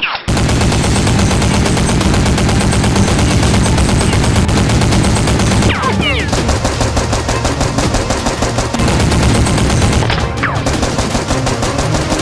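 Rapid automatic gunfire sound effects: dense, unbroken machine-gun fire, loud.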